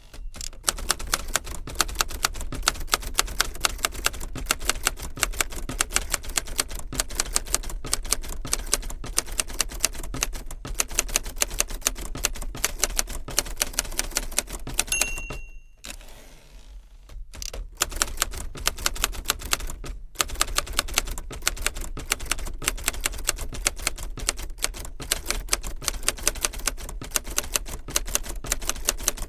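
Typewriter keys striking in a rapid, steady stream. About halfway through, the end-of-line bell dings and the typing breaks off for about two seconds before resuming.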